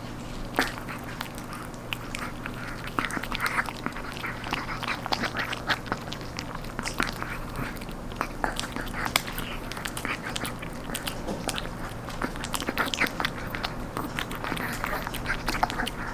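A Chihuahua gnawing and crunching a crisp dried duck knee (cartilage) treat: irregular sharp cracks and clicks of teeth breaking the dry cartilage, with wet chewing between them.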